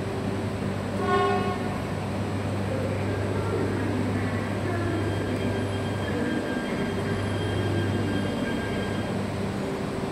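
E5 series Shinkansen rolling slowly into the station with a steady low hum. About a second in it gives one brief horn toot, with faint steady tones after it.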